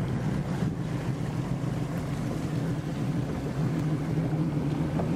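A bass boat's outboard motor running steadily under way, with wind buffeting the microphone.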